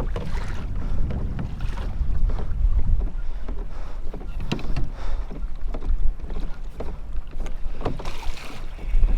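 Wind buffeting the microphone with a steady low rumble, water lapping against a small boat's hull, and a few scattered knocks.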